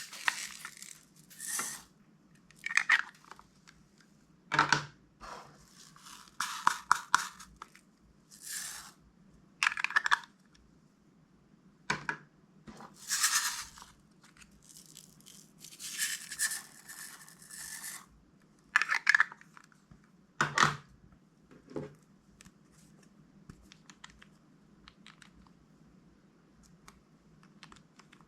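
Crunchy slime being squished and mixed by hand: about a dozen short bursts of crackling and crunching a second or two apart, thinning out to faint small clicks after about 22 seconds.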